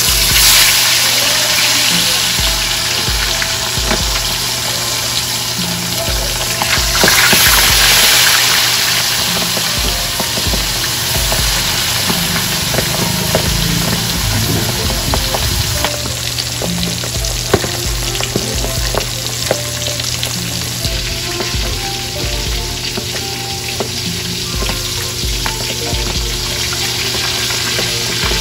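Butterflied milkfish frying in hot oil in a metal wok, a steady sizzle that swells louder about seven seconds in, then settles.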